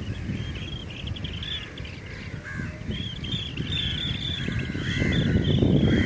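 Birds calling: many short, high chirping calls over a low background noise, with louder, harsher calls coming in about five seconds in.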